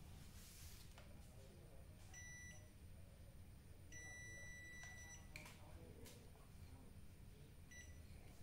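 Digital clamp multimeter's continuity buzzer beeping as its probes touch the pins on a CRT picture tube's neck: a short beep, then a longer one of about a second and a half, then a brief blip near the end, with a few faint clicks of the probes. Each beep signals a closed circuit between the probed pins.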